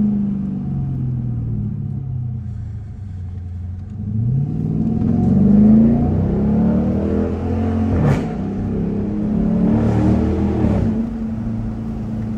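Straight-piped 5.7-litre HEMI V8 of a 2021 Dodge Durango R/T, heard from inside the cabin while driving. The exhaust note falls off at first, rises hard under acceleration about four seconds in, has a short sharp burst of noise about eight seconds in, then settles to a steady cruise.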